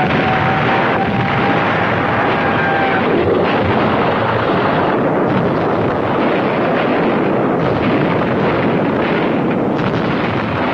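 Heavy naval guns firing, heard as a loud, dense, unbroken roar of gunfire with no gap between the shots.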